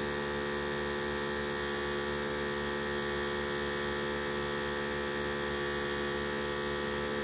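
Harbor Freight 12-volt portable air compressor running steadily while pumping up a truck tyre, a constant motor hum with a fast, even pulse from the piston.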